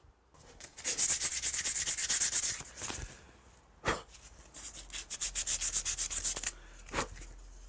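Folded sandpaper rubbed quickly back and forth by hand in a routed slot in MDF, cleaning up the cut edges, in two bouts of rapid strokes. A short knock falls between the bouts and another near the end.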